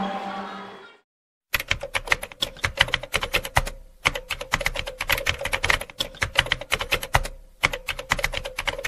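Typing sound effect: rapid, irregular key clicks in runs with short pauses, matching text typed out letter by letter. Music fades out in the first second, with a brief silence before the clicking starts.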